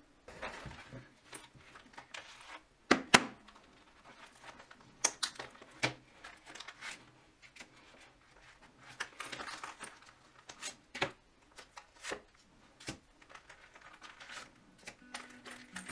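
Hands handling a leather wallet and its contents: rustling of leather, paper banknotes and cards, with scattered sharp clicks and taps. The loudest are two clicks about three seconds in.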